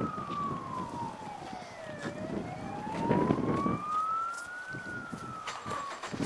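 Emergency vehicle siren wailing, its pitch sliding slowly down and then back up before it stops near the end. Under it runs a low gusty rumble, loudest about halfway through.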